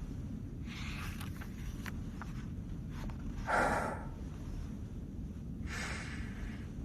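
Low steady room hum with a few soft breaths, the loudest about three and a half seconds in.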